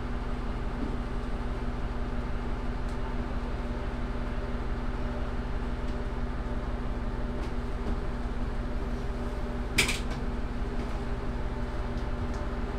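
Steady hum of a diesel railcar's engine, heard from inside the car, with one sharp click about ten seconds in.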